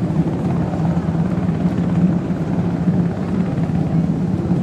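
Jet engine noise from a Boeing 777-300ER flying in formation with F-15J fighters, heard from the ground as a steady low rumble while the formation flies away.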